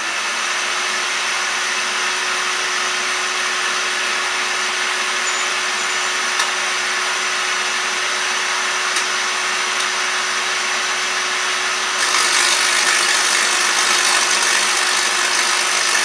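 Vacuum cleaner running steadily: a loud rush of air with one steady hum. About twelve seconds in the hiss gets louder and brighter, as the MOT-driven high-voltage spark gap starts firing and lights the halogen bulb load.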